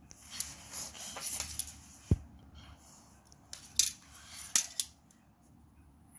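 Drawing strokes scratching across paper in quick, scratchy passes. There is a low thump about two seconds in, and the two loudest sharp strokes come a little under four and about four and a half seconds in.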